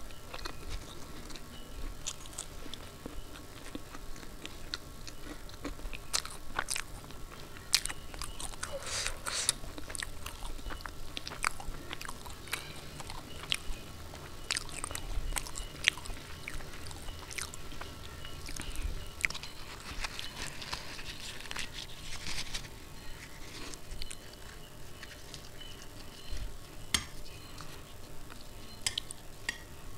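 Close-miked chewing and mouth sounds of someone eating puri with potato curry and ghugni, with many small sharp clicks and smacks.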